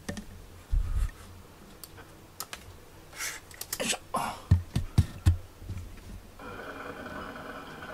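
Handling noise from a handheld camera: irregular clicks and a few dull knocks as it is moved. A steady hum comes in about six and a half seconds in.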